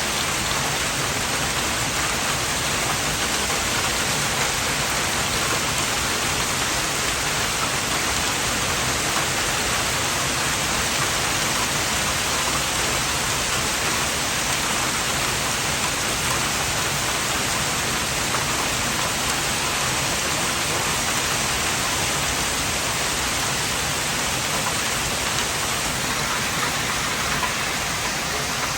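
Hailstorm: hail and rain falling hard on surfaces, a dense, steady hiss that eases slightly near the end.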